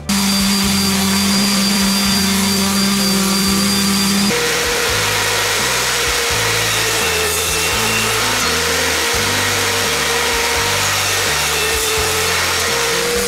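A woodworking power tool running steadily, its whine jumping to a higher pitch about four seconds in, with background music underneath.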